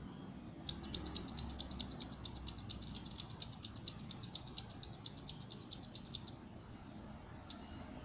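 Push-button of a Faber-Castell Tri-Click 0.7 mm mechanical pencil clicked over and over, about six or seven quick clicks a second for some five seconds, advancing the lead further out of the tip, then one more click near the end.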